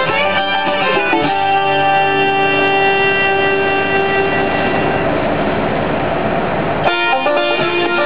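Bluegrass music from the radio: a song's long held closing chord rings and fades out, and about seven seconds in a new bluegrass tune starts abruptly with banjo and guitar.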